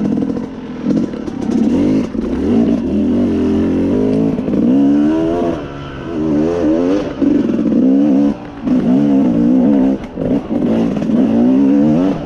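Yamaha YZ250 two-stroke single-cylinder dirt bike engine under way on a trail, the throttle opened and closed every second or two so the pitch keeps rising and falling.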